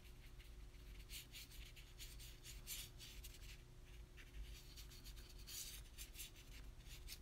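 Faint swishes of a watercolour brush stroking across paper: a run of short, soft strokes, some coming close together.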